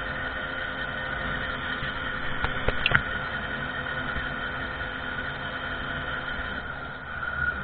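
Small moped engine running steadily at speed, its pitch holding level. A brief cluster of sharp clicks comes about two and a half to three seconds in.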